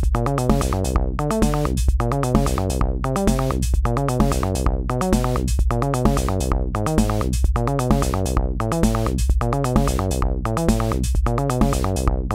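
Akai Rhythm Wolf analog drum machine playing a looping electronic beat, with regular drum hits over its bass synth line, which moves between notes in a repeating pattern.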